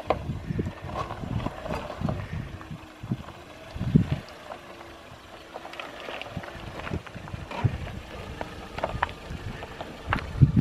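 Off-road 4x4 crawling slowly over rocks, its engine running low under irregular knocks and crunches of tyres and suspension on stone.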